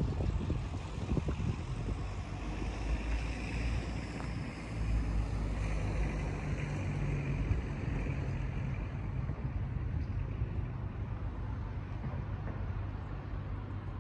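A motor vehicle's engine running close by, its drone swelling in the middle and easing off toward the end.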